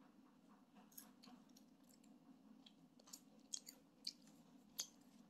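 A child chewing food with her mouth near the microphone: faint wet mouth clicks and smacks, a few sharper ones a little past halfway and near the end, over a low steady hum.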